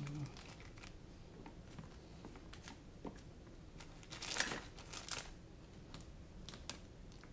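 Plastic parts bags crinkling and small screws clicking as a hand rummages through drone hardware on a silicone work mat, with the loudest rustle about four and a half seconds in.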